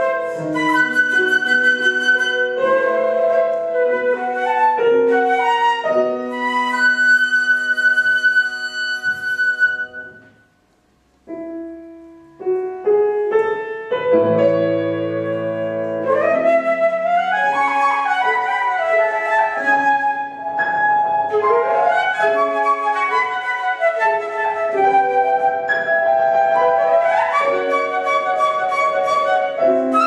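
Silver concert flute playing a classical piece with grand piano accompaniment. The music stops briefly about ten seconds in, then resumes, with low piano notes under the returning flute line.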